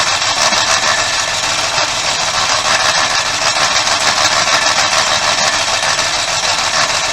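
RV generator engine trying to start, a loud steady mechanical noise. It won't start because its propane supply is shut off.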